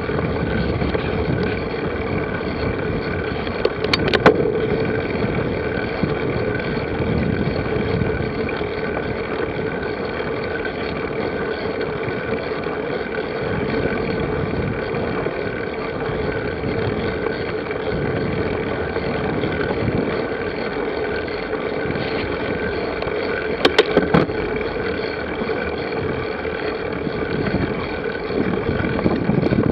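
Continuous steady rumbling noise with a constant hum, broken twice by brief clattering knocks, about four seconds in and again near twenty-four seconds.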